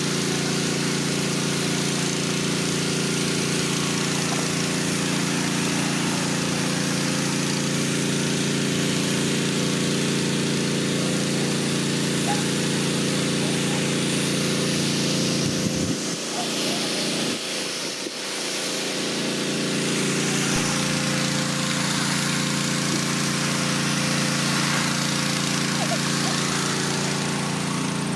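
A small engine running steadily with an even, unchanging hum. The level dips slightly for a few seconds about two-thirds of the way through.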